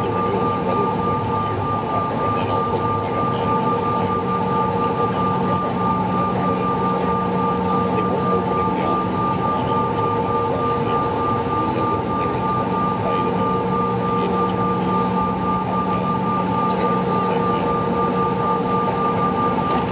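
Steady hum and whine of a CRJ-900 regional jet's rear-mounted GE CF34 turbofans, heard inside the cabin while the aircraft taxis at low power. Several constant whining tones ride over an even rushing noise.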